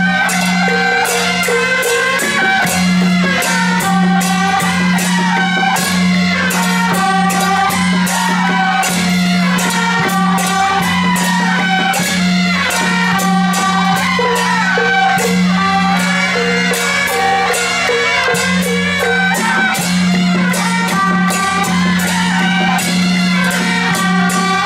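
Music: a melody over a steady held low note, with fast percussion strokes.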